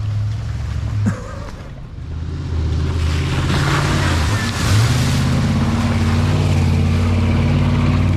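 Willys jeep engine pulling under load off-road, revving up in two steps, a couple of seconds in and again about halfway, then holding steady. A rush of splashing water and mud runs through the middle.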